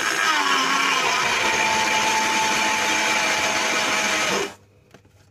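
Small electric blender running at full speed, mixing a thick Greek-yogurt topping. Its whine drops a little in pitch during the first second, then holds steady and cuts off suddenly about four and a half seconds in.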